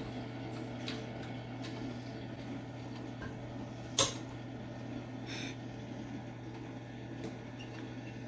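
Vintage kettle popcorn machine running, its stirrer turning the oil, sugar and kernels in the heating kettle with a steady hum. A single sharp click about four seconds in.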